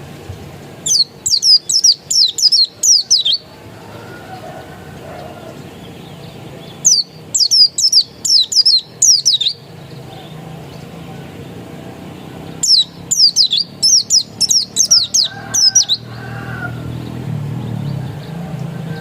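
Pleci dakun white-eye singing three bursts of rapid, steeply falling high notes, each burst about two to three seconds long, over a low steady hum that swells near the end.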